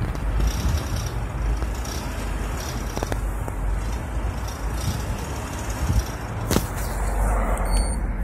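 Engine running with a metallic rattle, caused by a low oil level. A sharp click sounds about six and a half seconds in.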